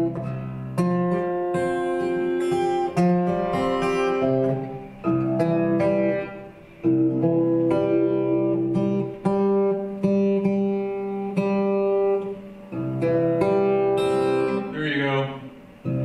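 Acoustic guitar playing strummed chords, each struck and left to ring, the chord changing every second or two.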